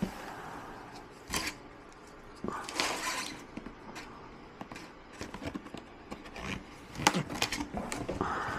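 Cardboard boxes being handled: hands sliding, turning and tapping a printed product box against its shipping carton, giving uneven scrapes, rustles and light clicks, with the biggest scrapes about a second and a half in, around three seconds in, and near the end.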